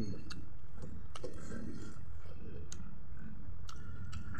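Close-up mouth sounds of a man chewing a mouthful of rice and chicken curry: lip smacks and tongue clicks, a handful of sharp clicks spread through, over steady low background noise.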